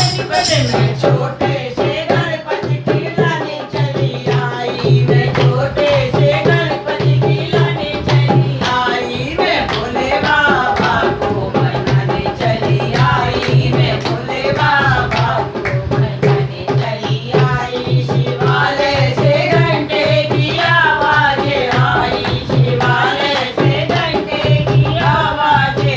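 Hindi devotional Shiva bhajan sung with a hand drum keeping a steady beat and rattling percussion.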